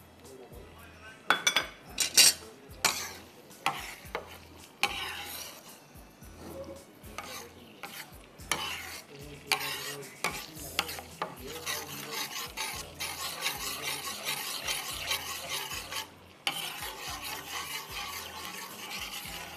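Blended onion and garlic frying in oil and butter on a tawa, stirred and scraped with a utensil: sharp knocks and scrapes in the first few seconds, then a steady sizzle with stirring strokes from about eight seconds in.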